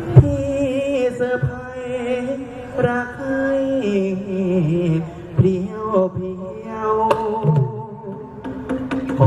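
Thai likay folk-opera song: a singer's wavering voice, amplified through the stage sound system, over a live accompaniment with occasional sharp percussion strikes.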